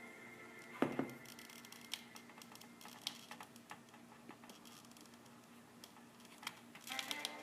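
Faint scattered clicks and taps of small parts being handled while LED lights are hot-glued into a sign, with a cluster of quick clicks near the end.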